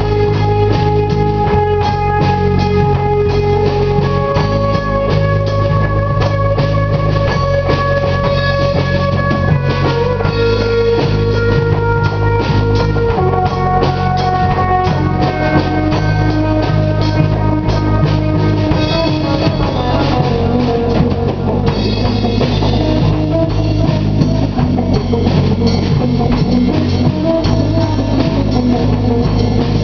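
Stoner rock band playing: electric guitar holding long sustained notes over bass and a steadily pounding drum kit.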